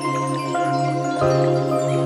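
Background music: sustained notes that change pitch every half second or so over a steady low drone.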